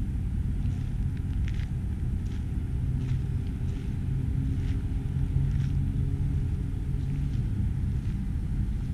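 Steady low rumble, with faint light ticks scattered through it.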